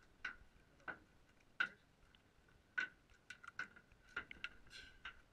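Faint, irregular sharp clicks and light taps, one or two a second and coming more often toward the end, over a faint steady high hum.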